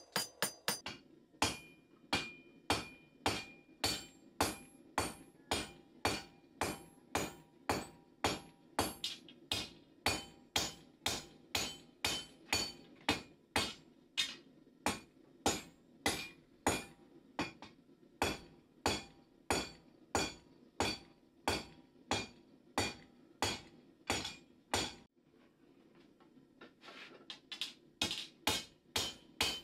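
Cross-peen hammer forging a red-hot steel knife blade on a steel anvil, about two blows a second, each with a short metallic ring. The blows stop for about two seconds near the end, then resume at a quicker pace.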